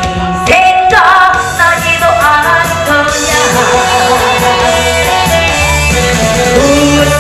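A woman singing into a handheld microphone over loud amplified instrumental accompaniment, her melody gliding and bending between notes.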